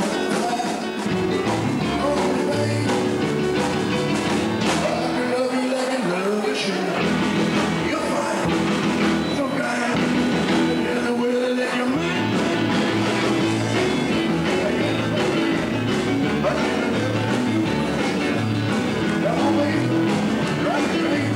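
Live band playing rock and roll dance music, with electric bass and guitar and a singer.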